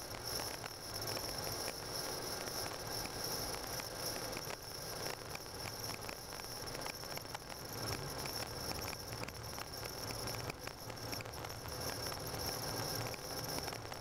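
Car driving on a snow-covered road, heard from inside: steady tyre and road noise with a fine, continuous crackle of the tyres on packed snow, under a steady high-pitched hiss.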